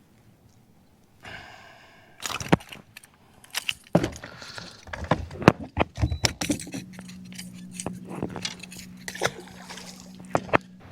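Irregular sharp knocks, clatter and splashing from a just-caught chain pickerel being unhooked and handled in the boat. About two-thirds of the way in, a low steady electric hum starts: the boat's trolling motor running.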